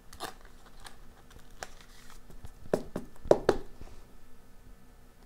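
A series of light plastic clicks and taps with a little rustling as a trading card is handled and slipped into a clear hard plastic card holder. The loudest clicks come about three seconds in.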